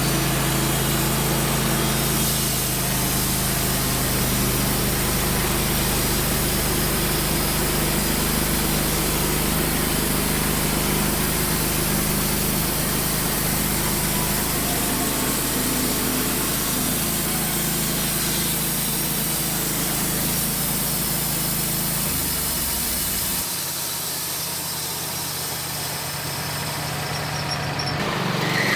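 A portable band sawmill's engine running steadily while its band blade saws through a maple log. About 23 seconds in, the deep hum drops away and the sound goes slightly quieter.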